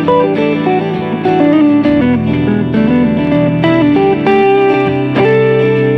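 Guitar music: plucked single notes moving in a melody over held lower notes.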